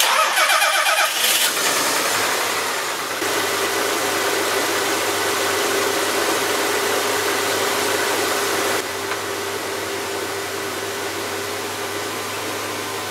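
Minivan's petrol engine being started: the starter cranks rapidly for about a second and a half, then the engine catches and settles into a steady idle, just after head gasket sealer has been added to the coolant. The running sound drops a little in level about nine seconds in.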